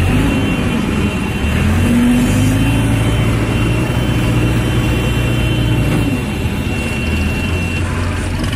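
Diesel engine of an orange ACE pick-and-carry mobile crane running, its pitch rising about two seconds in, holding, and dropping back around six seconds. A thin high whine sounds over it and stops near the end.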